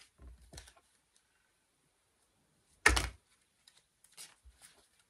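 Tarot cards being handled and laid on a table: a few soft clicks in the first second, one sharp slap of a card on the table about three seconds in, then a few light ticks.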